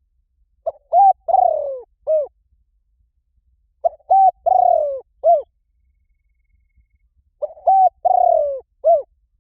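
Spotted dove cooing, three phrases about three and a half seconds apart. Each phrase has a few short notes, a longer falling coo and a short closing note.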